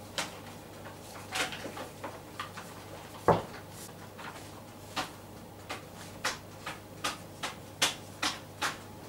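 A long thin rolling pin and a sheet of phyllo dough knocking and slapping on a floured countertop as the dough is wound on the pin, lifted and laid out again. One heavier thud comes about a third of the way in, followed by a string of quick light taps.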